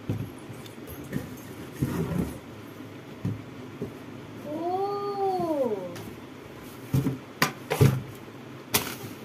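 A cat meows once about five seconds in, a drawn-out meow that rises and then falls. A few sharp knocks sound around it, the loudest near the end.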